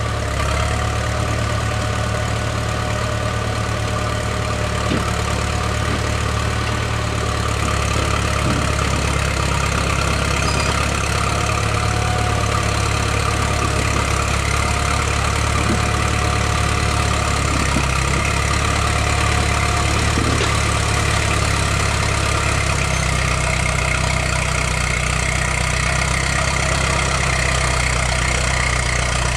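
Caterpillar D4C crawler dozer's diesel engine running steadily.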